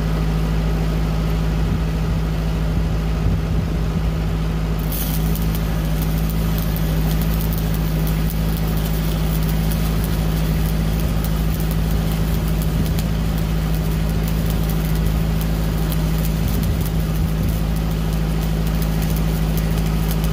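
Lincoln Pipeliner 200D diesel engine-driven welder running steadily; about five seconds in, a stick-welding arc strikes and keeps up a steady crackle as a 3/32-inch E8018 low-hydrogen rod runs the hot pass on the pipe joint.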